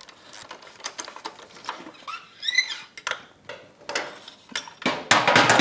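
Light metallic clicks and rattles of a socket and extension as a Suzuki GSX-R 1000's swingarm pivot bolt is unscrewed by hand and worked loose. A brief squeak comes about two seconds in, and a louder scraping clatter near the end.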